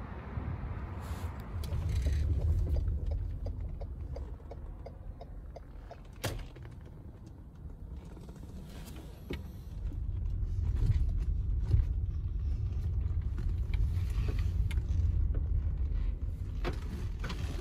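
Car driving, heard from inside the cabin: a low rumble of engine and road that swells and fades, with scattered clicks and one sharp knock about six seconds in.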